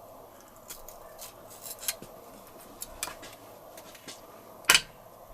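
Tools and engine parts being handled on a workbench: scattered light clicks and taps, with one louder sharp knock near the end.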